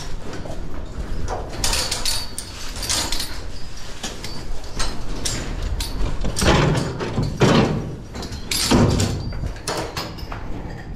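Irregular scraping and knocking of a wheelbarrow and fork at work, loading corn silage and moving it to the cows, with heavier, longer scrapes about six and a half to nine seconds in.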